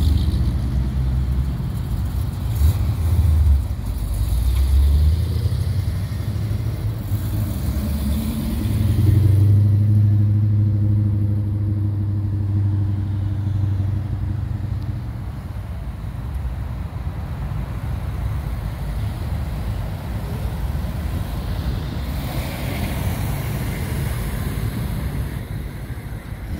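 Classic cars driving slowly past one after another, their engines giving a low rumble. One engine holds a steady low drone for several seconds about midway through.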